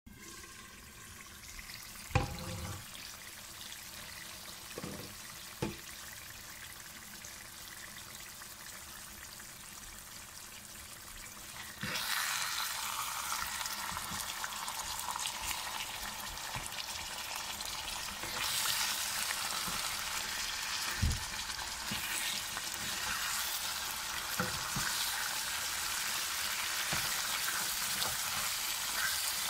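Chicken and potato curry frying in a pan, a steady sizzle that is muffled under a glass lid at first, with a few knocks. About twelve seconds in, the sizzling turns much louder and brighter as the pan is uncovered, and a spatula stirs the pieces.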